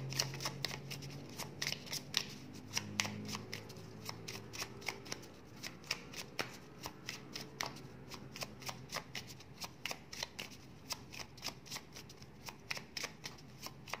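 A deck of rainbow-edged oracle cards being shuffled by hand: a quick, irregular patter of card clicks and flicks, about four a second.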